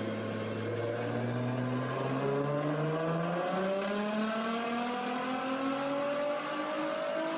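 Nissan GT-R's twin-turbo V6 making a pull on a chassis dyno, its pitch climbing slowly and steadily as the revs rise under load.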